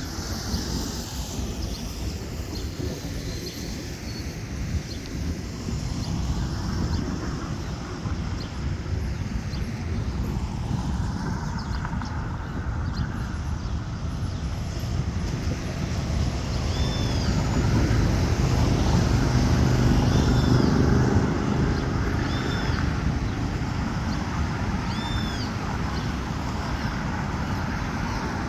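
Boeing 737-800's CFM56 turbofan engines at takeoff power: a broad jet rumble that builds to its loudest about two-thirds of the way through, then eases. Short high bird chirps repeat through the second half.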